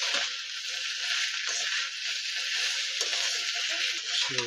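Cauliflower florets coated in rice flour and spices, with slit green chillies, sizzling steadily in hot oil in a wok while a metal spatula stirs them.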